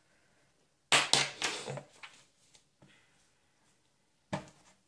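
Makeup tools being handled on a tabletop while a brush is picked out: a sudden clatter of knocks and rustling about a second in, then a shorter knock near the end.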